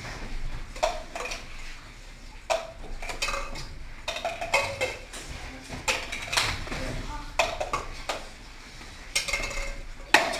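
Hard plastic cups being picked up, flipped and set down on a wooden table and board: a string of sharp, irregular clacks and taps.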